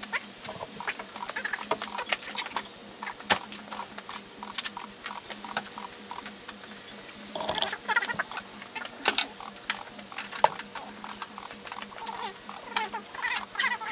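Scattered sharp clicks and taps from hand work on a car's rear trunk lid as a plastic rear spoiler is fitted, over a steady low hum.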